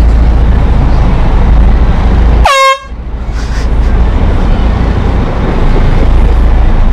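A short air-horn blast about two and a half seconds in, its pitch dropping as it sounds, over a steady heavy low rumble.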